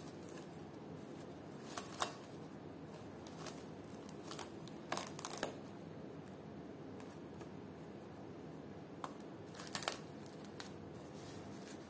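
Plastic cling film crinkling and crackling in short scattered bursts as it is stretched over a glass bowl and pressed around the rim, with the loudest crackles about 2 s in, between 4 and 5.5 s, and near 10 s.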